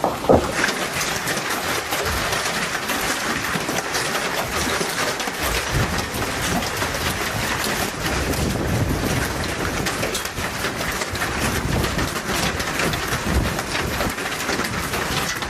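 Hail falling hard, a dense and steady clatter of countless hailstones striking surfaces.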